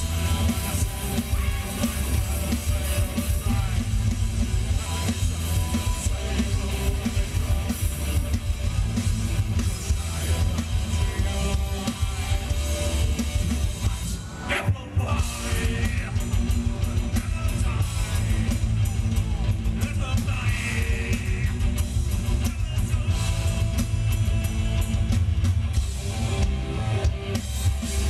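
Live rock band playing: electric guitars and a drum kit with a singer. The music breaks off briefly about halfway through, then the full band comes back in.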